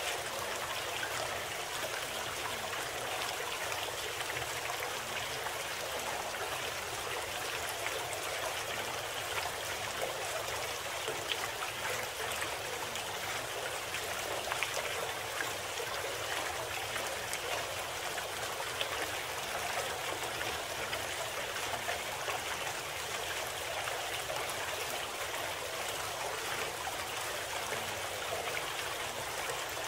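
Steady rushing of running water, like a stream, holding an even level with no music or pitched tones: the masking bed of a subliminal audio program.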